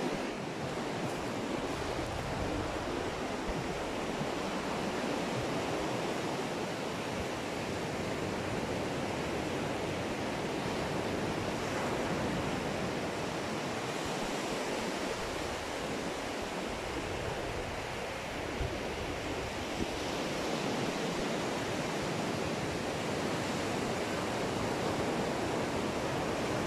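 Ocean surf breaking on the shore: a steady wash of wave noise that swells and eases slowly.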